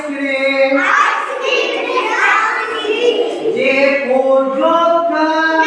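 Young children singing an alphabet chant together in unison, with their voices rising and falling in short sung phrases.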